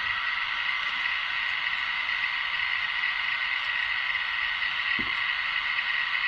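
Ludlum Model 2 rate meter's audio speaker clicking so fast the clicks blur into a steady crackling hiss: a high count rate from uranium ore held at the scintillation detector's probe.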